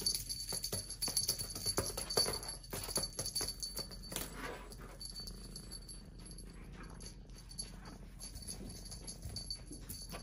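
Jingling and rattling of a cat wand toy with a spring wire and beads, shaken in quick clicks that are busiest in the first half.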